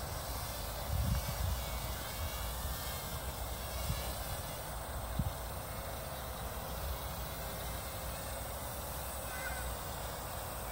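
Toy quadcopter (Lidl QC 360 A1) flying, its four small motors and propellers giving a steady, thin buzz like a mosquito. A few low wind thumps hit the microphone in the first half.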